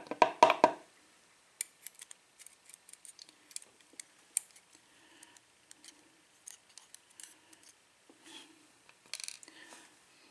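Small metal lock pins and tools being handled on a work surface: a quick run of sharp clicks in the first second, then scattered light ticks and clicks.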